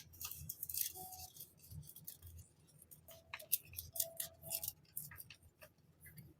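Hands handling and opening a parcel of journaling supplies: crinkling and rustling packaging with a rapid run of sharp clicks and taps, plus a few short faint tones.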